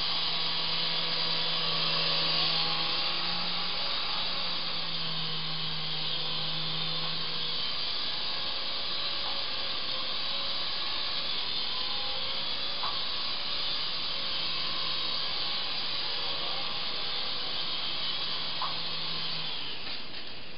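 Syma S109 mini Apache R/C helicopter's small electric motors and rotors whirring in flight, the motor tone rising and falling with the throttle. The whir stops a little before the end as the helicopter touches down.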